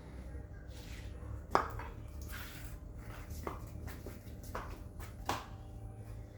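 Four or so sharp knocks, unevenly spaced, the first the loudest, over a steady low hum.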